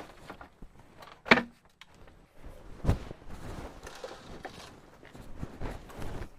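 Scattered knocks and rustling from handling work. The loudest is a sharp knock about a second and a half in, with a brief ring after it, and a duller thud follows near three seconds.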